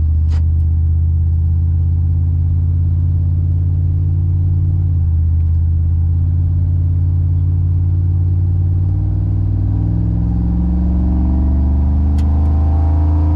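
GMC Sierra pickup's engine through a stainless 3-inch single catback exhaust, heard from inside the cab while driving: a steady low drone whose pitch shifts a couple of times, then climbs as the truck accelerates in the last few seconds.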